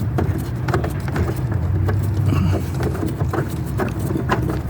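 A ratchet with a 10 mm socket clicking in short, uneven runs as it loosens a nut. A steady low hum runs underneath.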